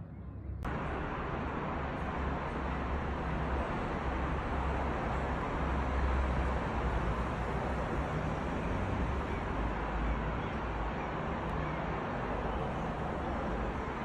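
Steady outdoor background noise with a low rumble and hiss, like distant road traffic, starting abruptly less than a second in. No distinct blasts.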